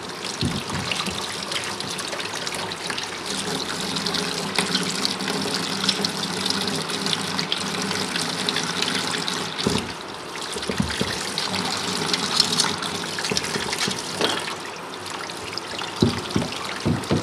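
Tap water running steadily into a utility sink, splashing over a bear skull as it is rinsed and rubbed clean by hand. A few dull thumps come through about ten seconds in and again near the end.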